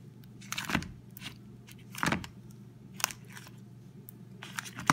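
Green slime with small beads kneaded and pressed by hand in a plastic tub, giving a few irregular crunchy squelches and crackles about a second apart.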